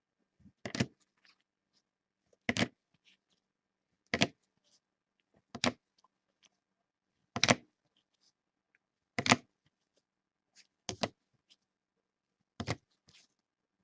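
Baseball cards being handled during a quick recap: a short, sharp slap or rustle about every one and a half to two seconds, eight in all, with quiet between.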